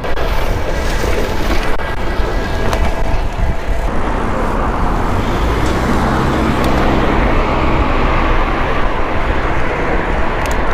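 Road traffic noise: a steady rush of passing motor vehicles that grows louder about four seconds in, with a low engine hum underneath.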